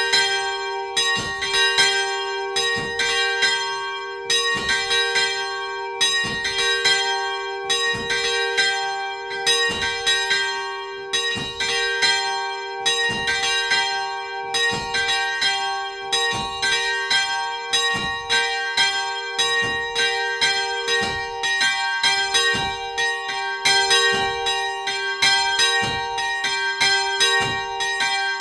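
Two 1994 Paccard church bells, tuned to G4 and B-flat4, swinging and ringing together, heard from inside the belfry. The clapper strokes of the two bells interleave at about two a second, and both notes keep sounding between strokes.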